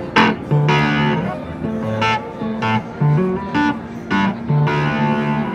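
Electric guitar chords strummed through an EarthQuaker Devices Fuzz Master General octave fuzz pedal on its no-diode setting, which gives a ring-modulator sound, with the fuzz control set low. The chords come as a series of sharp strums that ring briefly between hits.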